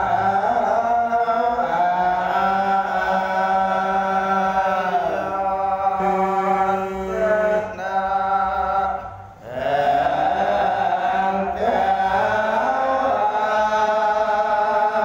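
Khmer Buddhist monks chanting a Dharma text (thor) into microphones in long, slowly bending melodic phrases, with a short break for breath about nine seconds in.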